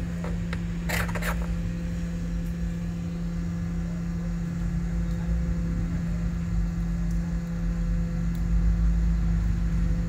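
Steady electric hum with a fan-like whir from running bench equipment, and two light clicks about a second in.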